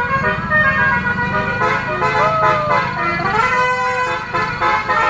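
Telolet bus horns, several at once, playing their multi-tone melodies in shifting, overlapping tones, a few of them sliding in pitch, over the steady rumble of bus engines.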